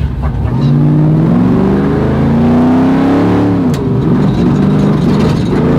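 Ford F100's trophy-truck race engine pulling hard, heard from inside the cab: its pitch climbs for about two seconds, falls away a little past halfway as the throttle comes off, then holds lower and steadier.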